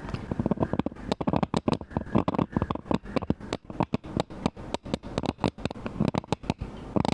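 A carving knife scraping and chipping a stone seal, giving fast, irregular scratches and clicks, several a second.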